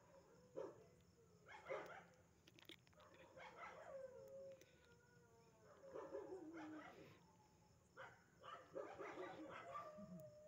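Dogs barking and howling, faint, in irregular bursts, with a few drawn-out howls that fall in pitch.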